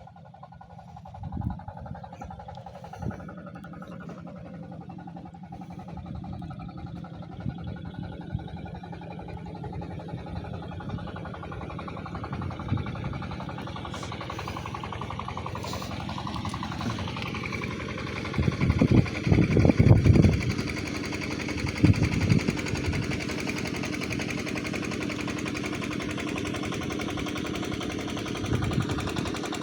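A small engine running with a rapid chugging beat, growing steadily louder, with a few heavy low thumps about two-thirds of the way through.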